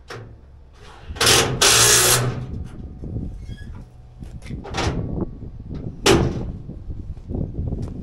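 Electric drill boring a hole for about a second, then a few short sharp knocks and clanks.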